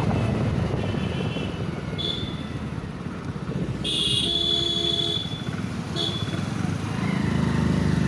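Hero Splendor's single-cylinder four-stroke engine running under way, heard from the rider's seat with wind noise. Short horn beeps sound about two seconds in, a longer one around four seconds, and a brief one near six seconds.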